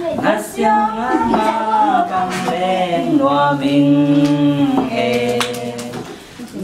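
A man and a woman singing a duet, holding long notes, with a short break between phrases near the end.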